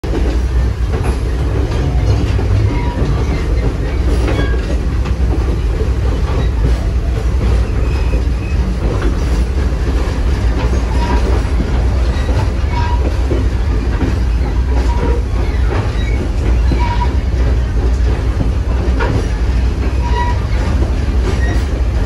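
Passenger coach rolling along behind a steam locomotive, heard through an open window: a steady, loud rumble of steel wheels on the rails with occasional clacks as the wheels cross rail joints.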